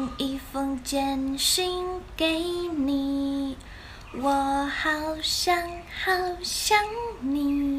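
A woman's voice singing a slow, gentle melody in short held notes, with a brief pause a little past halfway.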